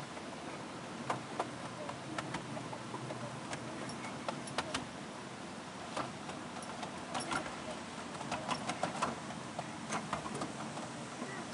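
7¼-inch gauge miniature train running along its track: the car's wheels click irregularly over rail joints, sometimes in quick clusters, over a steady rumble of the ride.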